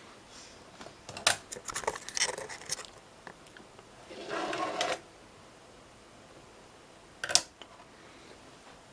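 A string of small sharp clicks and rattles from small hard objects being handled, then a brief whirring noise about four seconds in and a single sharp click near the end.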